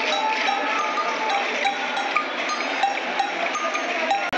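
Many cowbells clanking and ringing at once, a dense, irregular jangle over the din of a marching crowd. The sound cuts out briefly near the end.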